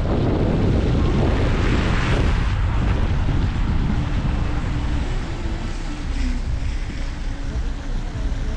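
Wind buffeting the microphone over the low rumble of a Mahindra XUV700 SUV driving on a snowy road. It is loudest in the first two or three seconds, then eases off, with a faint steady hum from about four seconds in.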